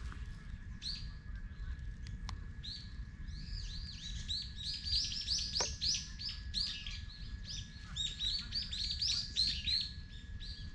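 Small songbirds chirping in quick, high, arched notes, scattered at first, then a dense run of chirps from about four seconds in.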